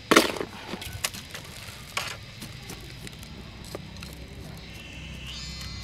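Plastic scoop scraping into loose potting mix and soil being tipped into a cut-off plastic bottle pot: a few sharp scrapes and pours, the loudest at the very start, then quieter rustling. A faint steady buzz comes in near the end.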